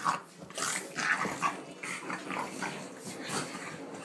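A French bulldog and a Boston terrier puppy play-fighting, growling in short, irregular bursts.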